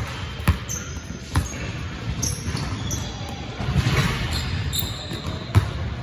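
A basketball bouncing on a hardwood gym floor as a player dribbles: a few sharp bounces, the loudest near the end, ringing in a large echoing gym. Short high sneaker squeaks come in between.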